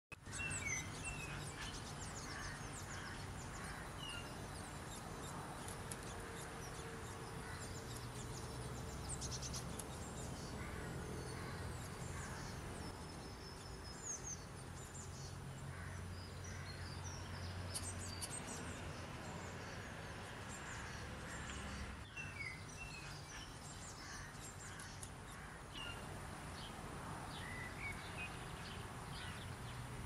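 Birdsong ambience: several small birds chirping and singing, scattered short calls throughout, over a steady low rumble.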